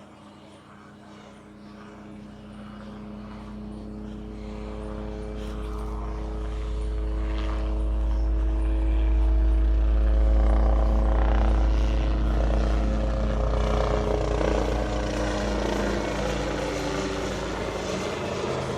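Engine of the Agusta Caweel CW-86 aircraft as a sound effect: a steady drone of several engine tones over a deep rumble, growing louder to a peak about halfway through, then easing off slightly.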